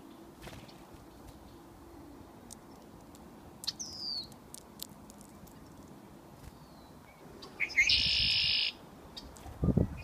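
Small songbird calls, fitting a black-capped chickadee: a single falling whistled note about four seconds in, then a loud, buzzy run of call notes lasting about a second near eight seconds in.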